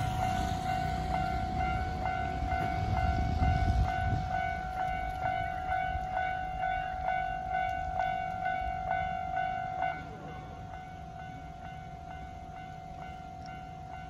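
Japanese railway level-crossing electronic warning bell ringing in a steady, rapid ding-ding, about two strikes a second, while the crossing is closed. About ten seconds in it drops to a quieter level and keeps ringing. Road traffic rumbles underneath during the first few seconds.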